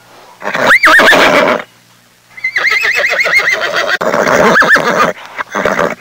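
Horse whinnying: a short whinny about half a second in, then a longer whinny with a rapid quavering pitch from a little after two seconds to about five seconds in.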